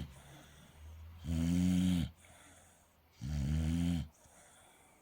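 A sleeping dog snoring in a steady rhythm: two loud, pig-like snores about two seconds apart, each lasting under a second, with a quieter breath before each.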